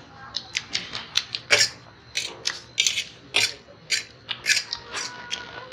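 Close-miked eating: chewing and mouth smacks on spicy noodles and chicken, with forks clicking and scraping on steel plates, making a rapid, irregular run of sharp clicks.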